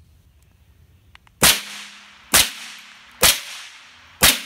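Four gunshots fired about a second apart at a metal target, each a sharp crack followed by a short echoing tail.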